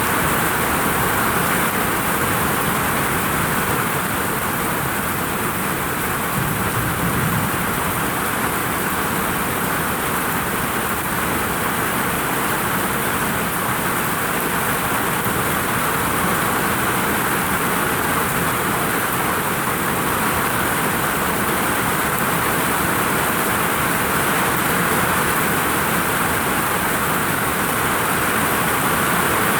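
Heavy rain pouring steadily onto a vinyl roof, a loud, dense, unbroken hiss.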